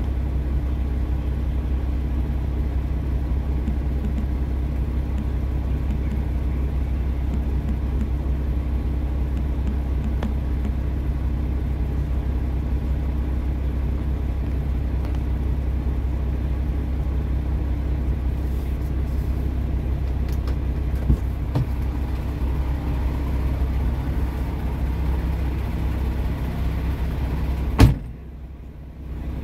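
Semi truck's diesel engine idling steadily in neutral, a low even hum heard from inside the cab. Near the end there is a sharp click, and the hum drops away for about a second before it returns.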